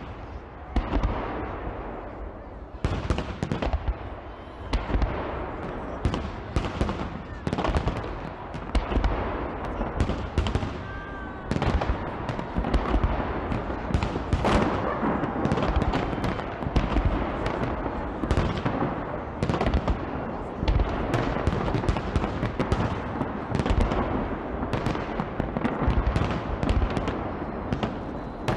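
Fireworks display: a dense, unbroken barrage of bangs and crackling bursts, one going off after another with no pause.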